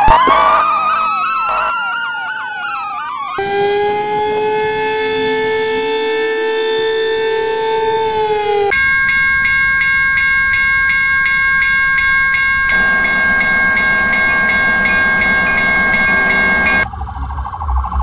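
Several sirens wailing and sweeping up and down over each other, fading out about three seconds in. Then a steady horn-like chord sounds for about five seconds, followed by a steady high alarm tone with a regular clicking pulse that stops abruptly a second before the end.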